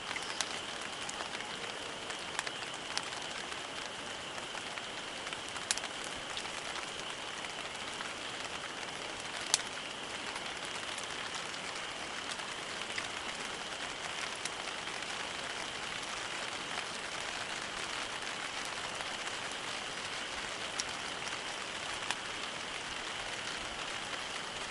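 Campfire burning with a steady hiss and scattered sharp crackles and pops, the loudest about ten seconds in.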